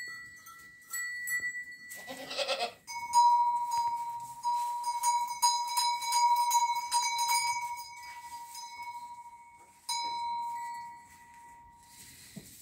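A goat bleats once, briefly, about two seconds in. Then bells clink and ring on and off, their tones held for several seconds at a time before fading near the end.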